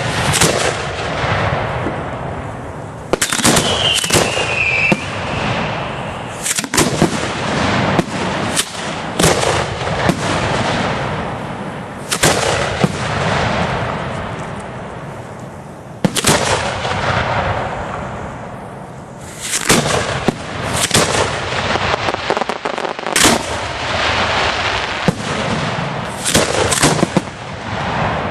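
Professional display fireworks shells bursting overhead in a rapid series, each a sharp report followed by a long rolling echo, with several quick clusters of bangs. A short falling whistle sounds about four seconds in.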